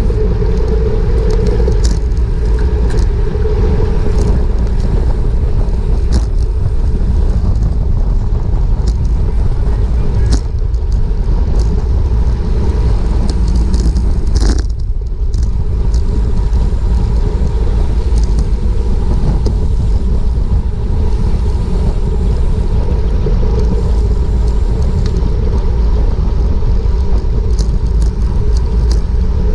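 Wind buffeting a helmet- or bike-mounted GoPro microphone as a bicycle rides at speed: a loud, steady, low rumble with scattered small clicks and ticks.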